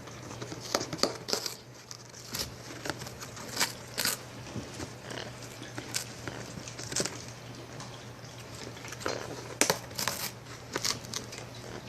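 Yellow-naped Amazon parrot chewing and tearing cardboard with its beak: irregular crackling and ripping, in clusters with short pauses.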